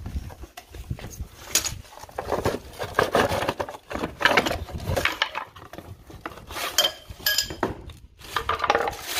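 Hard plastic outboard motor-mount parts being pulled out of a cardboard box and set down on stone paving: irregular clattering knocks and cardboard scraping, with a few short clinks and rustling of packaging.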